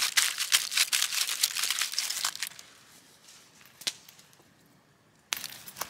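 Aluminium foil crinkling and crackling as it is wrapped tightly around a potato, for about two and a half seconds. Then it goes quiet apart from a single tap, and a new noise starts abruptly near the end.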